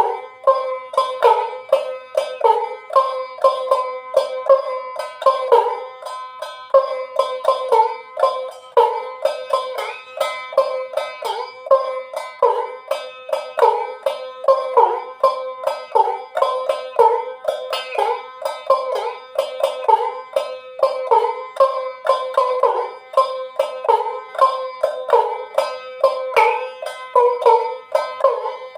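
Ektara, the one-string Bengali folk lute, plucked in a steady rhythm of about two to three strokes a second, some notes bending in pitch.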